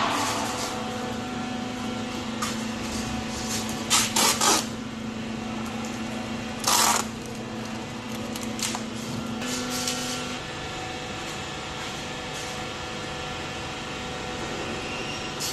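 Workshop machinery running with a steady hum whose held tone stops about two-thirds of the way through. Short bursts of hissing: three close together about four seconds in and one near seven seconds.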